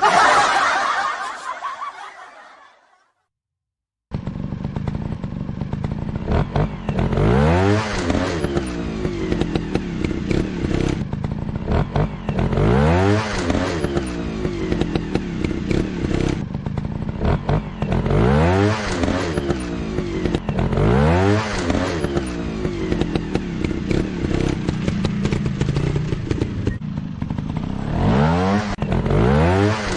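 Trail bike engines running and being revved hard again and again, the pitch climbing and dropping every few seconds. Before that a sound fades out over the first couple of seconds and a short silence follows.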